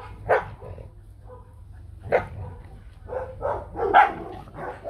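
White Bắc Hà dogs barking and growling as they play-fight and snap at each other: rough play, not a real fight, since their back fur is not raised. There is a sharp bark about a third of a second in and another about two seconds in, then a quick run of barks near the end.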